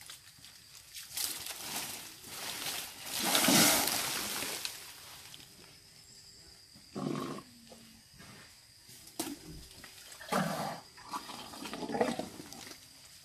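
Sumatran elephants splashing and spraying water, in several rushing bursts; the loudest comes about three to four seconds in.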